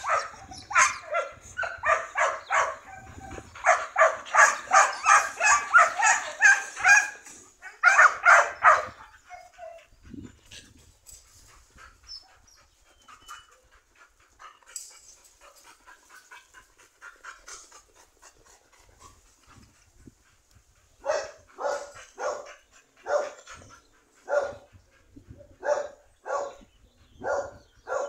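A dog barking: a fast run of barks for the first nine seconds or so, then quiet, then single barks about once a second from about twenty seconds in.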